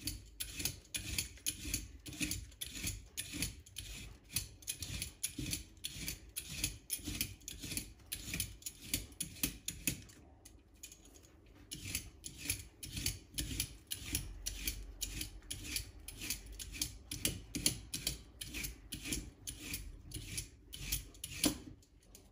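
Hand vegetable peeler scraping the skin off white asparagus spears on a wooden cutting board: quick repeated strokes, about two to three a second, with a short pause about halfway through.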